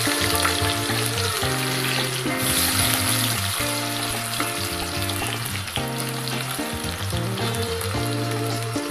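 Diced potatoes sizzling in hot oil in a kadhai, the sizzle slowly easing as they settle in to fry. Background music plays along.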